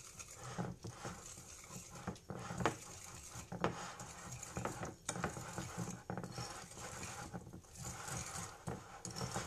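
Metal wire whisk beating pancake batter in a glass bowl: a steady wet stirring with irregular sharp clinks as the wires strike the bowl.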